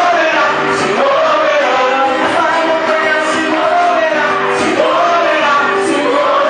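Live gospel music: voices singing a melody over an amplified band, loud and without a break.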